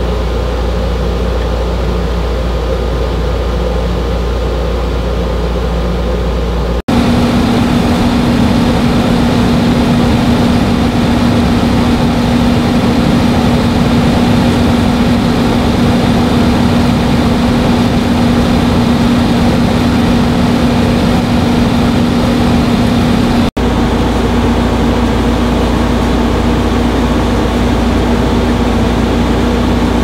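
Frigidaire 15,100 BTU window air conditioner running in cooling mode: a steady rush of fan air with a constant hum. About seven seconds in it cuts abruptly to a closer, louder sound with a strong steady hum tone, and cuts back about 23 seconds in.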